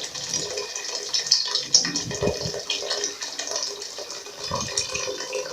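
Boiled water being poured into a cooking pot of sautéed vegetables to make a soup's broth, a continuous splashing pour.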